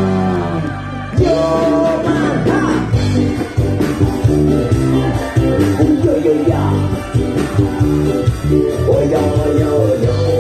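Live band playing a song: male singing over electric guitar, bass and a steady beat.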